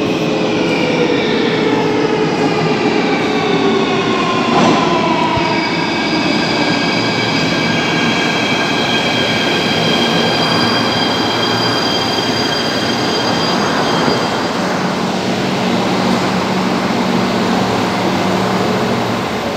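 Electric metro train pulling into an underground station and braking to a stop, its whine falling in pitch over the first several seconds. Steady high tones follow while it stands at the platform, with a low steady hum near the end.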